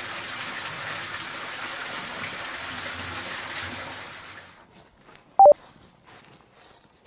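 Hot-spring water pouring steadily into an open-air bath, cut off after about four and a half seconds by footsteps crunching through dry fallen leaves. About five and a half seconds in, a short two-note electronic beep, higher then lower, is the loudest sound.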